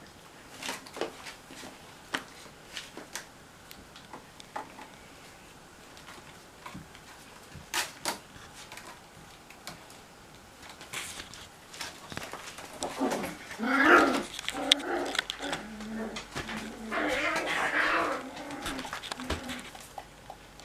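Cocker spaniel puppies playing on a tiled floor: scattered clicks, taps and scratches of paws and claws, then two bouts of puppy whining and yelping in the second half, the louder part of the sound.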